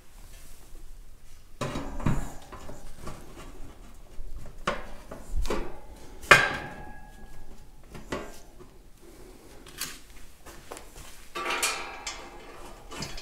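Metal parts clanking and knocking as a cast radiator top tank is handled and set onto a steel tractor grille, with one sharper clank about six seconds in that rings briefly.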